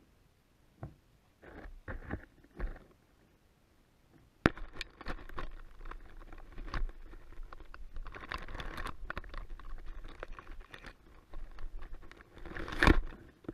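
Key deer nosing at a camera on the ground, heard from the camera itself: irregular knocks, rubbing and scuffing against the camera housing, with a sharp knock about four and a half seconds in and a loud burst near the end.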